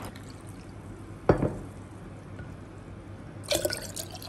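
Water poured from a glass measuring cup into a clay pot of jaggery syrup, splashing into the liquid. One sudden louder hit comes about a second in, and a run of quick splashes comes near the end.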